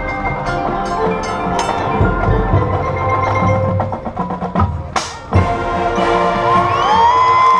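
Marching band playing, led by the front-ensemble mallet percussion (marimba and bells) with drums under it, and a crash about five seconds in.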